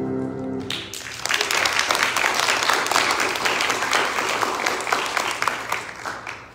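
A grand piano's last chord rings out briefly, then applause breaks out about a second in and runs for about five seconds before dying away near the end.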